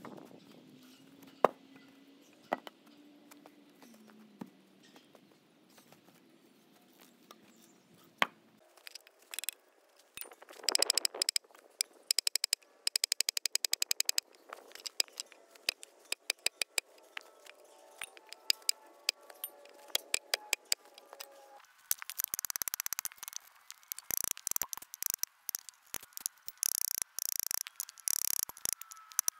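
Runs of rapid hammer blows on a steel spike being driven into a heavy timber beam, sharp taps coming many to the second from about ten seconds in and brighter near the end. Before that there are only a few isolated knocks.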